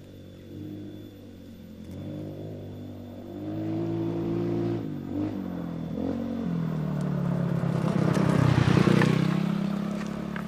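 A motor vehicle engine drawing nearer, its pitch rising and dropping several times, loudest about eight to nine seconds in and then fading as it passes.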